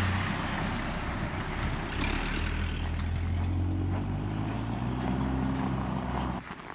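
A motor vehicle's engine running close by: a steady low hum over a rushing noise, which cuts off suddenly near the end.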